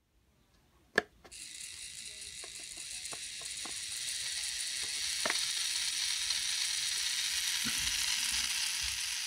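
A sharp click about a second in, then a LEGO 47154 9V geared motor starts running with a steady high whir that grows louder over the next few seconds and then holds. It runs smoothly on its new metal 11-tooth pinion, which replaced the cracked plastic pinion that made it click.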